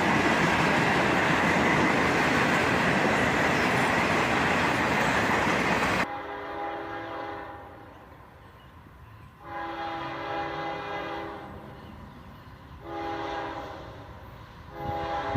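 A freight train of autorack cars rolling past with loud, steady rail noise. About six seconds in, this cuts to a diesel locomotive's multi-chime air horn sounding a series of long blasts, about four, a couple of seconds apart.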